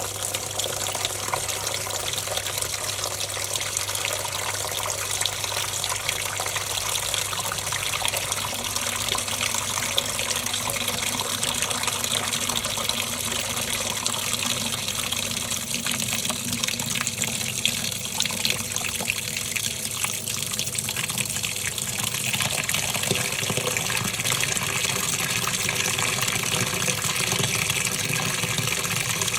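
Top-loading washing machine with water rushing into the drum, a steady gushing fill. A low hum underneath stops about halfway through.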